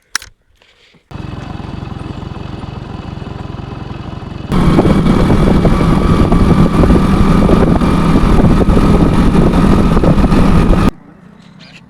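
A motor running steadily, starting just after a click. About four seconds in it becomes much louder, and it cuts off suddenly near the end.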